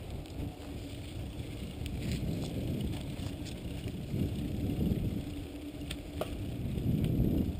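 Mountain bike being ridden over a rough dirt and concrete path, heard from a camera on the handlebars: a steady low rumble of tyres and wind on the microphone, with a few sharp rattling clicks from the bike.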